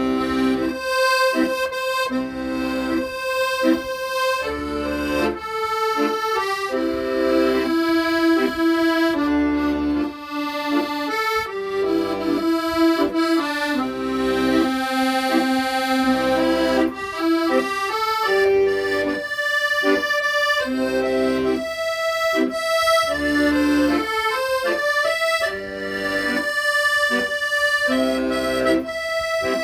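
Solo accordion playing a slow song melody over chords, with steady reedy sustained notes and a regular pulse of bass notes.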